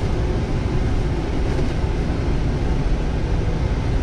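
John Deere wheel loader's diesel engine running steadily as the machine drives slowly, heard from inside the cab as an even low rumble.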